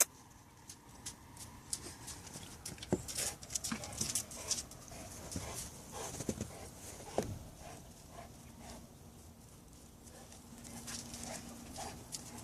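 Mastiff dogs moving about, giving a string of irregular light clicks and knocks that thin out over the second half.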